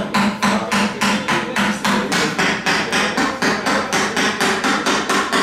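A hammer striking repeatedly in quick, even blows, about five a second.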